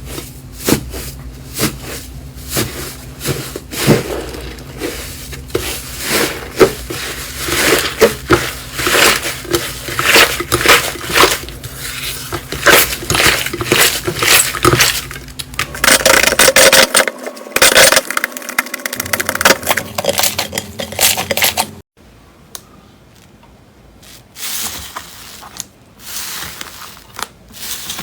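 Hands squishing and pressing slime: a dense run of crackles and pops, then, after a sudden cut about 22 seconds in, quieter and sparser clicks.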